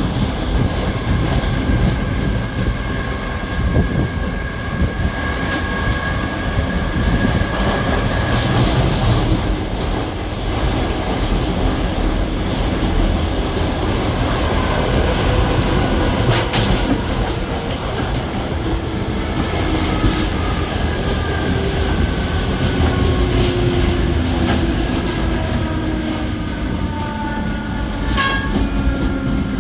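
Spanish-built 2100-series electric multiple-unit train car running: a steady rumble of wheels on track with a clickety-clack. An electric traction-motor whine holds steady at first, then falls in pitch over the last ten seconds, with a couple of brief high wheel squeals.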